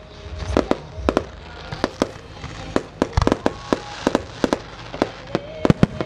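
Pyrotechnic fireworks crackling: a dense, irregular run of sharp pops and bangs, with music playing faintly underneath.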